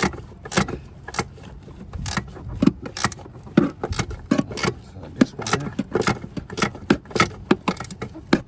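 A 13 mm wrench working a nut on a brake master cylinder in short swings: sharp metallic clicks and clinks, roughly two a second and unevenly spaced.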